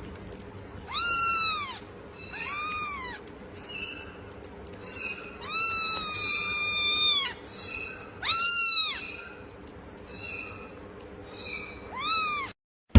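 A cat meowing repeatedly in high-pitched, arching meows, some louder and some fainter, with one long drawn-out meow near the middle.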